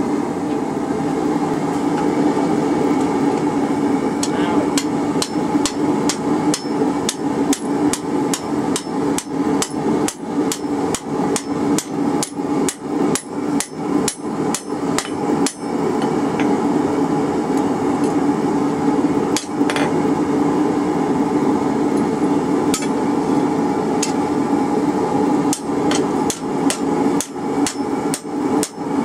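Hand hammer striking hot rebar on a steel anvil, a quick run of ringing blows about three a second, thinning to a few single strikes midway, then quickening again near the end. A steady low hum sounds underneath.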